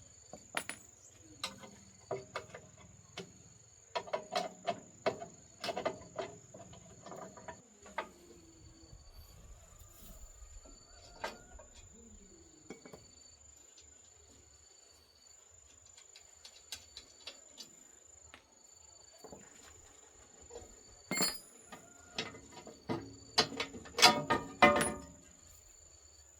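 Scattered clicks, clinks and light knocks of tools handling metal parts, densest at the start and near the end. Under them runs a steady high insect trill, broken by short chirps repeating about once a second.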